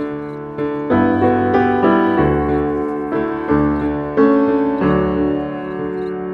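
Background piano music: a gentle sequence of piano notes and chords.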